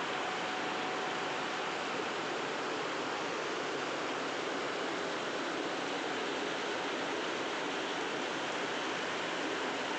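Steady rushing water, an even unbroken roar with no rhythm or change in level.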